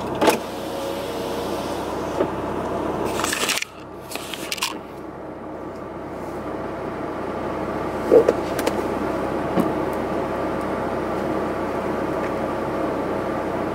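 Steady hum of a car heard from inside the cabin, the engine running as it creeps along, with a few small knocks and clicks. The hum drops suddenly a little over three seconds in, then builds again.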